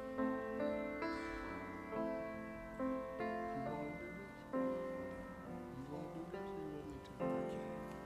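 Keyboard playing slow, held chords, with a new chord or melody note coming in every second or so.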